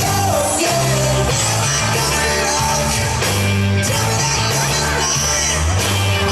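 Upbeat rock-and-roll song with a singer, played loud over a PA.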